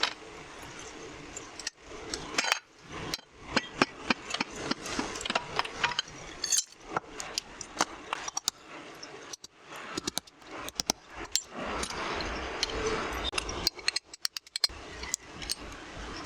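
Irregular metallic clinks, clicks and knocks of hand tools and small metal parts being handled during hand work on an angle grinder.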